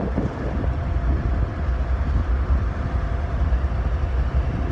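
Diesel locomotives idling: a steady low engine rumble with a faint steady hum over it.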